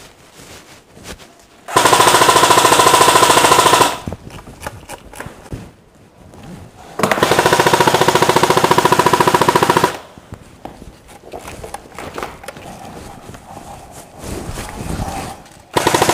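Airsoft electric gun firing two long full-auto bursts, each two to three seconds. The gearbox cycles rapidly with a steady motor whine.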